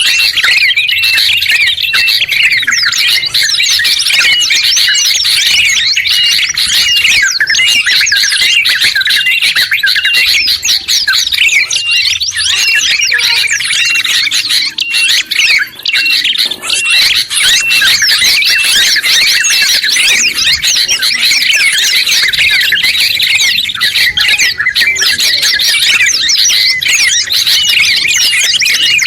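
A dense, layered mix of songbirds chirping and trilling without pause: yellow-vented bulbul (trucuk), sooty-headed bulbul (kutilang), prinia (prenjak) and white-eye (pleci). Through it a short high note repeats about twice a second.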